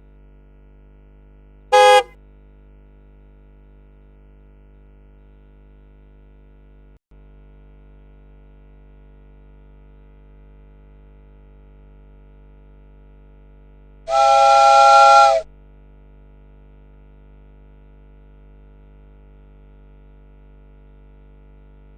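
Two toy-truck horn honks: a short one about two seconds in and a longer one of just over a second past the middle, over a steady low electrical hum.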